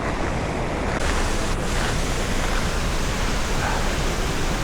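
Tannforsen waterfall making a steady rushing roar of falling water.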